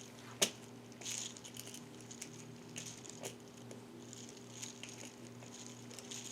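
Light clicks and faint scraping of hand work on a laptop's screws and casing: a sharp click about half a second in, then scattered small scratches, all over a steady low electrical hum.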